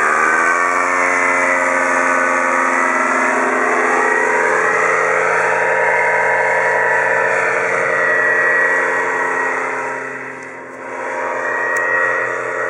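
Powered paraglider's engine and propeller running in flight overhead, the pitch rising in the first second and then holding steady. The sound fades for a moment about ten and a half seconds in, then comes back.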